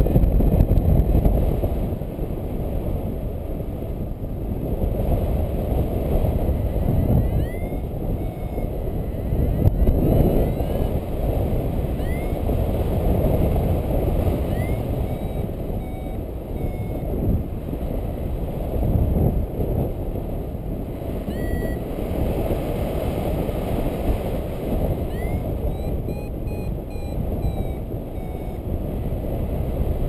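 Wind rushing over the microphone of a paraglider in flight, with short electronic variometer beeps every few seconds and a quick run of them near the end, the vario signalling that the wing is climbing.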